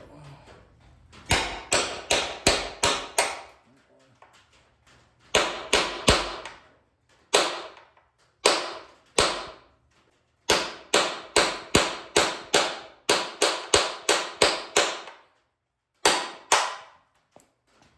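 Hammer blows on a metal tool driving rivets out of a steel truck frame: sharp ringing strikes in bursts of several, about two a second, with short pauses between and a longer, quicker run of blows in the second half.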